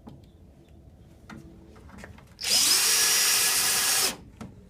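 Power drill driving a screw, running for about a second and a half from about halfway through, then stopping. A few light clicks come before it.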